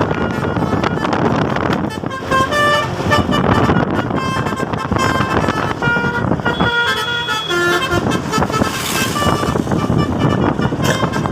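Multi-tone 'telolet' bus horn playing a tune of stepped notes from about two seconds in until near eight seconds, over a steady noisy background.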